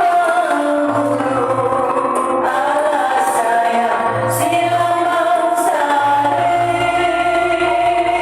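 Malay joget gamelan music: metallophones hold steady ringing notes over repeated low drum beats, with a wavering melody line on top.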